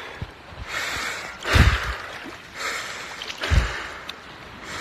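A man taking quick, heavy breaths in and out, about one a second, getting ready to hold his breath underwater, with a couple of low thumps from wind or handling on the phone microphone.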